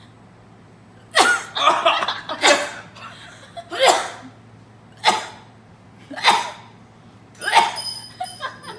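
A person sneezing repeatedly: a string of loud, sharp sneezes, one every second or so, starting about a second in.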